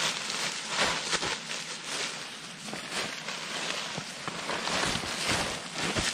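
Irregular crunching and rustling in cold, dry snow, a dense crackle with scattered small crunches and no steady rhythm.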